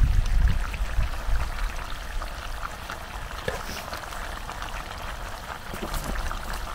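Whole chickens, potatoes and vegetables sizzling and bubbling in oil and a little water in a large pan over a gas burner: a steady crackling hiss, with a low rumble in the first second or so.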